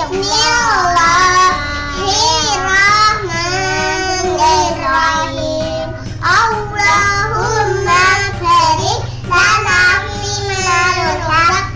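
Young children singing a song, with notes held and gliding.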